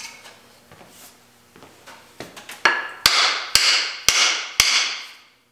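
About five sharp blows roughly half a second apart, struck on an axe handle to drive the steel head down onto the wood and seat it. Each blow leaves the axe head ringing briefly. Light handling noise comes before the blows.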